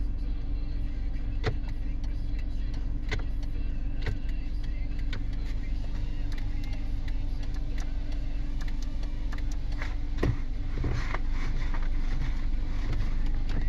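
Car engine idling steadily, heard from inside the cabin, with sharp clicks now and then from switches or the turn-signal relay while the brake and turn-signal circuits are being tried.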